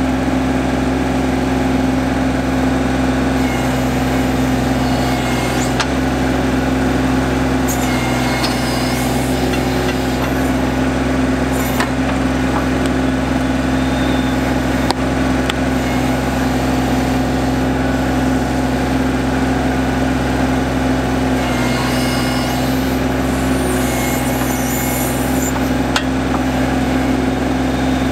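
John Deere 2025R compact tractor's three-cylinder diesel engine running steadily while it powers the 270A backhoe digging a hole in soil, with a few sharp knocks as the bucket works.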